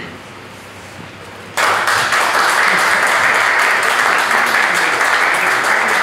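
Audience applauding, starting suddenly about a second and a half in and going on steadily.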